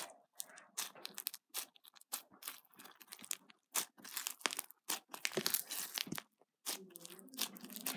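Pink foam-bead slime (floam) being stretched and squished by hand, with irregular crackling, crunching and small pops from the foam beads.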